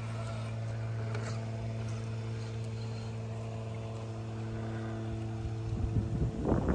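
Axial SCX6 1/6-scale RC crawler's electric motor and geared drivetrain whining at a low, steady pitch as the truck creeps slowly over rocks. Near the end the sound turns louder and rougher as the drivetrain comes under load.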